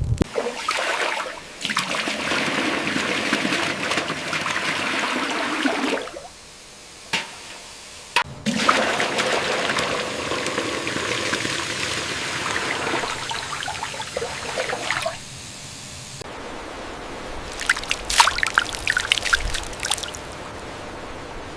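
Water trickling and pouring, in several stretches that cut off and start again abruptly, with a quieter patch of crackling near the end.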